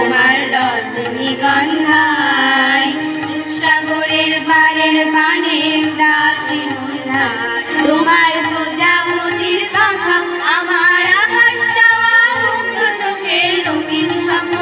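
Girls' voices singing a Bengali song together with electronic keyboard accompaniment, a sustained note holding under the wavering melody.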